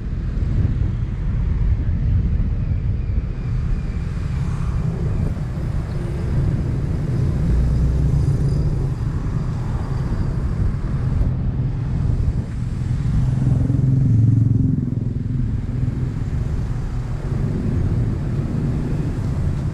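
Motor vehicle traffic running steadily: a continuous low engine and road rumble that swells slightly about two-thirds of the way through.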